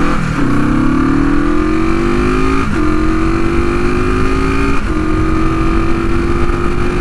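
1973 Honda CB450's parallel-twin engine, on cheap aftermarket exhaust pipes, pulling hard as the bike accelerates away: the engine note climbs, drops briefly at each of three upshifts, and climbs again. Wind rumble on the bike-mounted microphone runs underneath.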